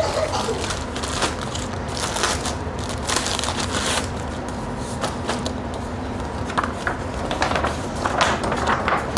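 Clear plastic bags crinkling and large poster sheets rustling as they are handled and pulled out, an irregular run of crackles.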